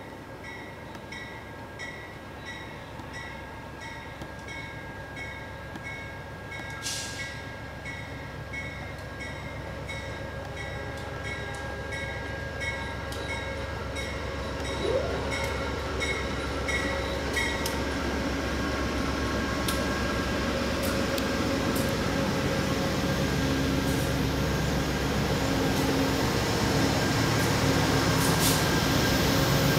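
A GE Genesis diesel locomotive hauling a passenger train draws steadily closer, its engine and wheel noise growing louder throughout. A small ding repeats about twice a second for the first half and then stops, with a brief hiss about seven seconds in.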